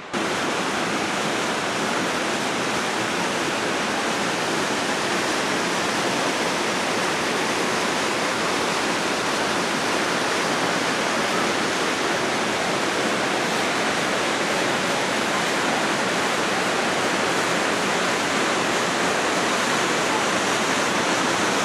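Steady rushing of creek water, an even hiss that cuts in suddenly and holds unchanged.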